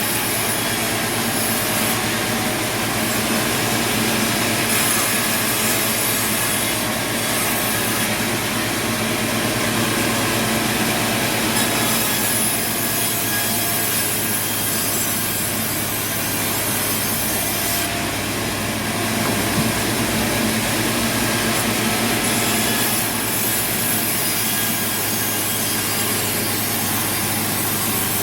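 Sawmill saw cutting through wood: a loud, steady sawing noise over the constant hum of the machine, with no break in the cut.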